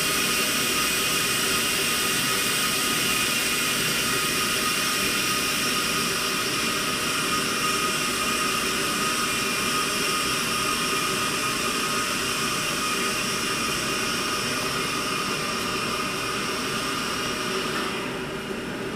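Steady hiss of carbon dioxide gas flowing through a tube into a closed euthanasia chamber. It drops in level and loses its top near the end.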